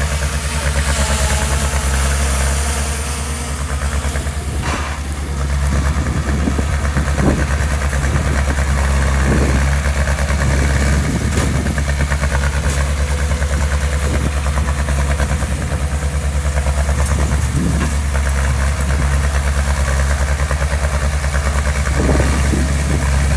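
Diesel engine of heavy construction machinery (dump truck or bulldozer) running steadily with an even pulsing beat, with a few brief knocks.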